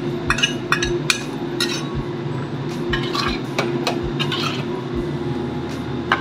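A spatula stirring and scraping through coconut-milk beef curry in a steel wok, with several sharp clinks in the first two seconds and one near the end. A steady low hum runs underneath.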